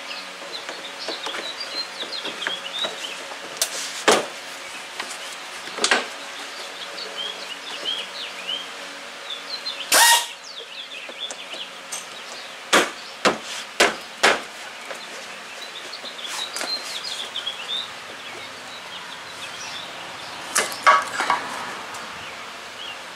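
Scattered knocks and clicks of vehicle front-end parts being handled and fitted into place, with one louder ringing metal clank about ten seconds in and a quick run of knocks a few seconds later. Birds chirp in the background throughout.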